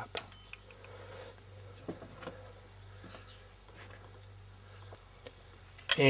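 Fuel-line push-lock quick-connect fitting snapping into place as the tube is pushed home: one sharp click just after the start, the sign that the spring clips have locked over the tube's ring. A few faint clicks of handling follow about two seconds in.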